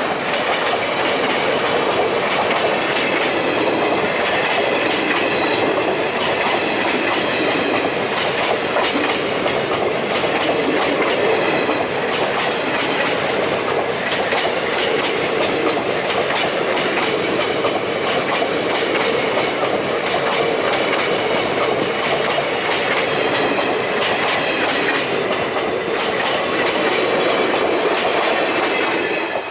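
Passenger train crossing a rail bridge: a steady loud rumble with wheels clattering in regular groups over the rail joints.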